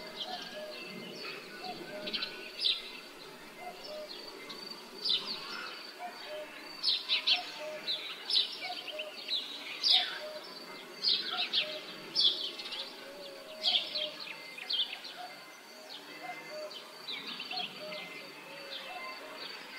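Rural village ambience dominated by songbirds: many quick high chirps in irregular bursts, with a short lower note repeating about once a second, over a steady low background hum.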